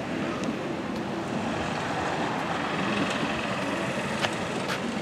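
Steady rolling noise of a moving vehicle with wind on the microphone, and two sharp clicks near the end.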